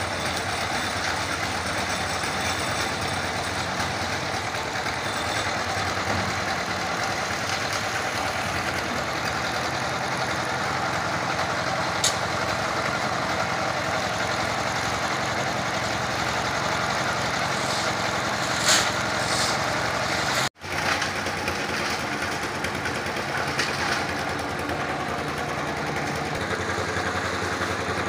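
Engine-driven drum concrete mixer running steadily, with a few sharp knocks.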